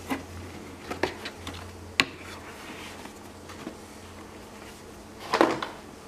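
Hands handling parts in a computer case: three sharp separate clicks and taps about a second apart, then a short rustle near the end.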